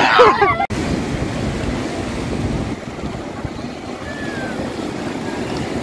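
Sea surf breaking and washing around a floating pontoon bridge, a steady rushing noise, with wind buffeting the microphone. Voices are heard only briefly at the start and cut off abruptly just under a second in.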